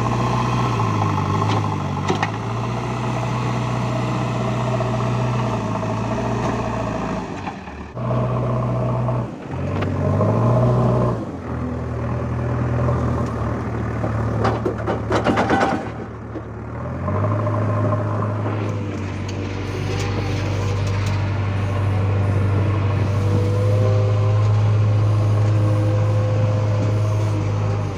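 Heavy diesel engine of a JCB 3DX backhoe loader running at work, its engine speed dipping and picking up again several times as it takes load. A brief hiss about halfway through.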